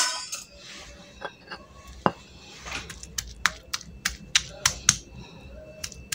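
Stone pestle pounding and crushing chunks of overripe tempe in a stone mortar: a run of short, sharp knocks, a few at first, then about three a second from halfway on.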